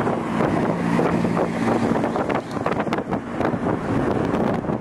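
Wind buffeting the microphone over the road and engine noise of a moving car. A low engine drone is heard through the first two seconds.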